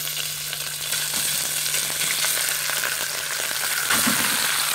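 Raw lamb flap pieces sizzling and crackling as they land in a hot oiled wok for stir frying: a steady loud sizzle with fine spattering crackles.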